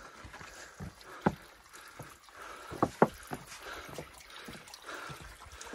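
Boots scuffing and knocking on rock while scrambling up a stony stream gully, a string of uneven footfalls with two sharp knocks close together about three seconds in, over a faint trickle of water.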